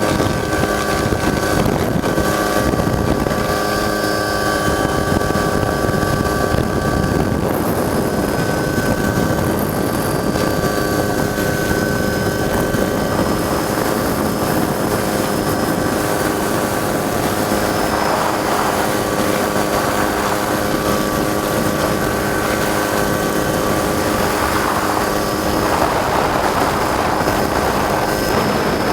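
Helicopter engine and rotor noise heard from aboard the helicopter: a steady drone with several constant whining tones over it.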